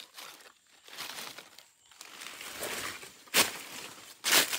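Dry leaf litter rustling and crackling, then two loud crunches of footsteps on the dry leaves in the second half.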